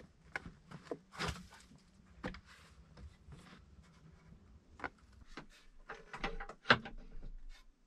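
Wooden plank door of a log cabin being handled, with scattered knocks and footsteps on plank boards; a sharp knock near the end is the loudest.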